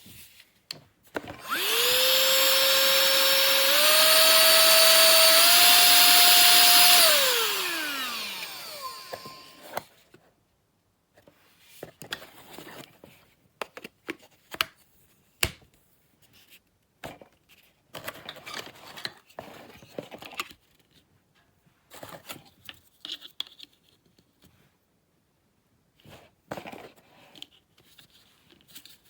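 Small cordless handheld vacuum cleaner motor switched on, running with a loud high whine that steps up in pitch twice, then switched off and spinning down with a falling whine. After that, about twenty seconds of scattered plastic clicks and knocks as the vacuum and its parts are handled.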